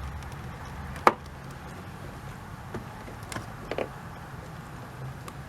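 Turn signal bulb socket twisted a quarter turn into a Kia Spectra's headlight housing: one sharp plastic click about a second in as it locks, then two fainter clicks a few seconds later.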